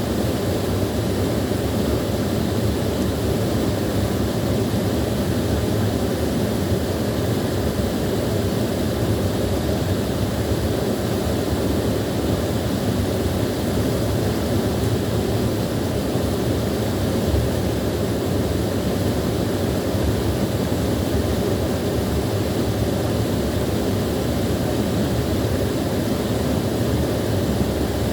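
Small waterfall pouring steadily: an even, deep rush of falling water that does not change.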